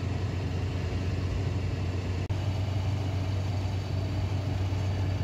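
Steady engine and road drone inside the cabin of a Suzuki SJ-series four-by-four at motorway speed, with a strong low hum. It drops out for an instant about two seconds in, at a cut between two clips.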